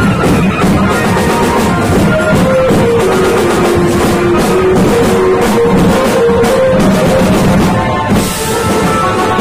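Street band of marching snare and bass drums with a drum kit of tom-toms and cymbals, beating a fast, steady rhythm under a stepwise melody line. A cymbal crash comes about eight seconds in.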